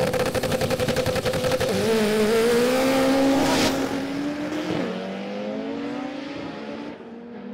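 A car engine accelerating hard, its pitch climbing, dropping once about five seconds in as at a gear change, then climbing again. A single sharp crack comes a little past halfway. The sound fades toward the end.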